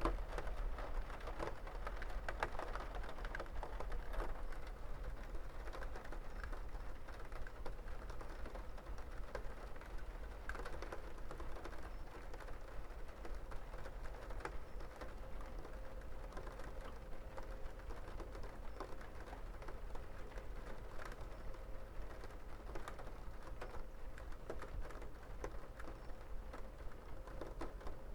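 Steady rain, with many irregular drops tapping on a hard surface over an even hiss and a low rumble.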